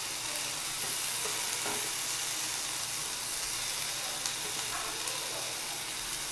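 Sliced onions and chopped tomato sizzling in olive oil in a nonstick frying pan: a steady frying hiss, with one faint click about four seconds in.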